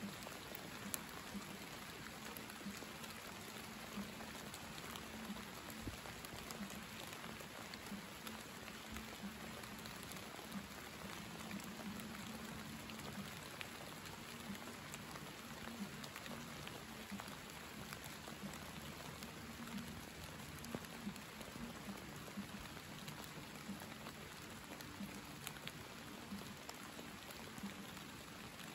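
Steady summer rain falling, an even hiss dotted with scattered sharp drop hits.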